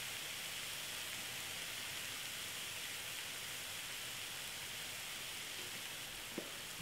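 Minced chicken and diced vegetable filling sizzling steadily in a frying pan, with one light tick near the end.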